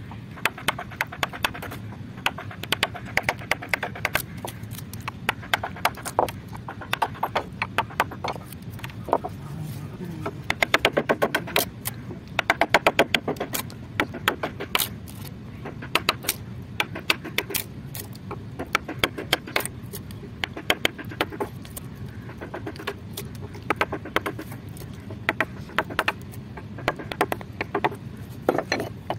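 Woodcarving chisel cutting into a wooden relief panel: a continuous irregular series of sharp taps and knocks as the blade is driven in and chips break away, with quicker runs of several taps a second around the middle.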